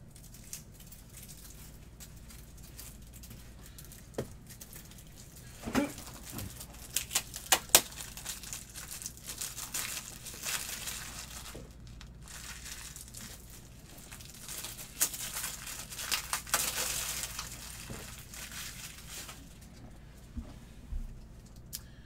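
Plastic packaging crinkling and rustling, with scattered sharp clicks and knocks, as card supplies such as top loaders are rummaged through and unwrapped. A quiet first few seconds of room tone come before it.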